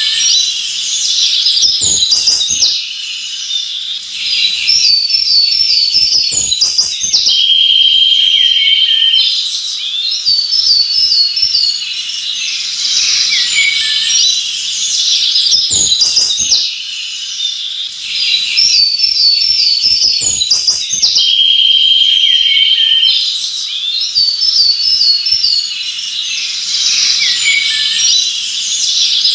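Several songbirds chirping and singing over one another in a forest, with a repeated quick warbled phrase and a short even trill among the calls, over a steady high hiss. The same stretch of birdsong repeats about every 14 seconds, as in a looped recording.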